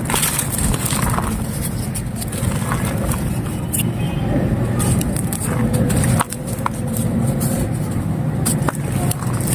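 Dry baked clay crumbling and scraping, with scattered sharp crackles over a steady low rumble of vehicle traffic.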